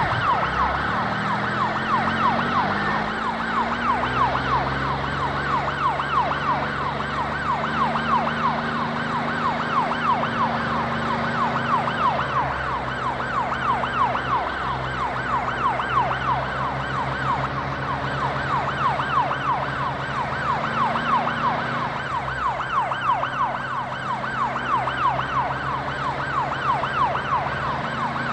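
Police car siren in a fast yelp, about three rises and falls a second, held steadily, with a low drone underneath.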